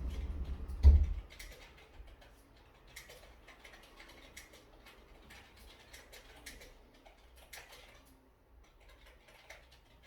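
A low rumbling thump about a second in, then faint, scattered clicks and taps.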